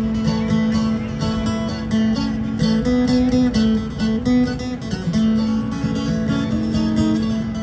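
Live band playing an instrumental passage, led by a strummed acoustic guitar.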